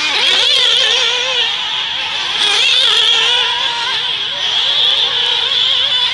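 Several nitro RC buggy engines running at high revs together, their pitches rising and falling over and over as the buggies accelerate and brake around the track.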